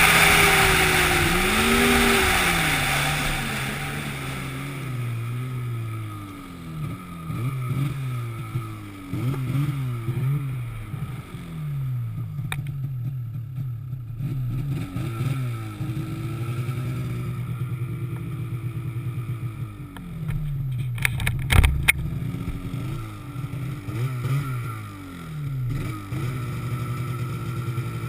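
An engine running, its pitch rising and falling over and over as it revs and drops back. A hiss fades out over the first few seconds, and a quick cluster of clicks comes about three-quarters of the way through.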